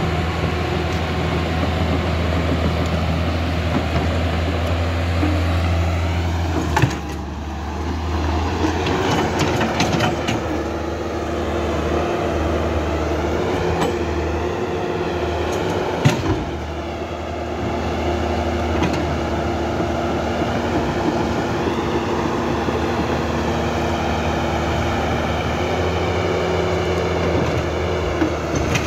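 Electric drive motors of a Huina 1550 radio-controlled excavator working its boom, arm and bucket: a steady low hum with a whine that rises and falls as the arm moves, and two sharp clicks, one about a quarter of the way through and one past the middle.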